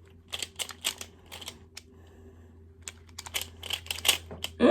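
Plastic Rubik's cube turning: quick runs of light clicks as the layers are twisted, in two bursts with a pause of about a second between them.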